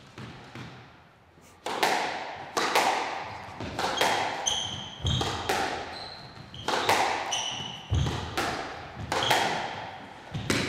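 Squash rally: the ball is served about a second and a half in, then struck by the rackets and knocked against the walls roughly once a second, each hit echoing in the court. Short high squeaks of shoes on the court floor come between the hits.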